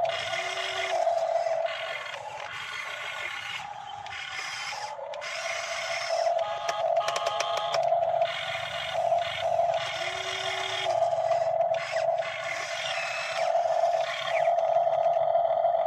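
Electric motors of radio-controlled model excavators whining steadily as they work the arms through mud. The whine surges and dips, with a few light clicks partway through.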